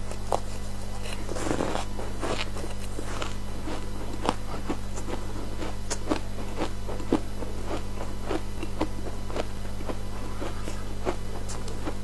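Ice dusted with matcha powder being bitten and chewed: a run of irregular crisp crunches, a few a second, over a steady low hum.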